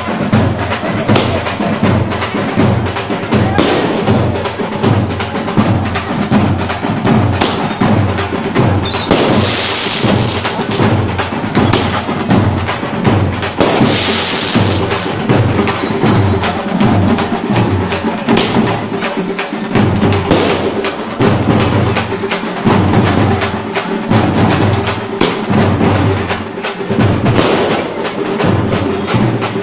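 Loud percussion music with a fast, steady drum beat, cut through by sharp firework bangs and two longer hissing, crackling firework bursts about nine and fourteen seconds in.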